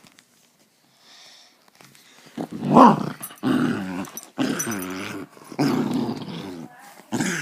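Puppy growling during a game of tug of war, in a string of about four growls of roughly a second each after a louder sudden sound near the three-second mark.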